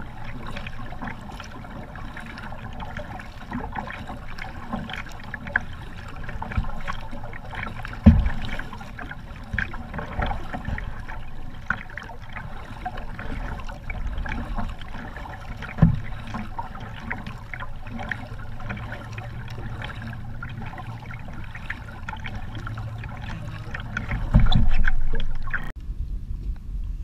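Double-bladed kayak paddle stroking through calm water beside a plastic sit-in kayak: steady splashing and dripping, with two dull thumps about a third and two-thirds of the way through. Near the end there is a louder low rumble lasting about a second.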